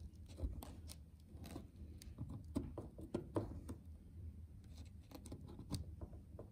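Faint, irregular small scratches and clicks of close handwork: a wooden swab stick working at a crack in the ceiling wallpaper, holding it open while a superglue bottle's nozzle is pressed into it.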